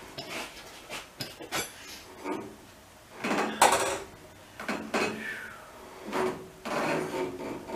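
Irregular clunks, knocks and a short scrape from objects being moved and set down by hand in a workshop. The loudest clunk comes about three and a half seconds in.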